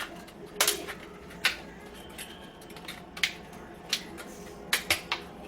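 A plastic bottle and its cut-off parts being handled on a counter: a few irregular sharp clicks and taps.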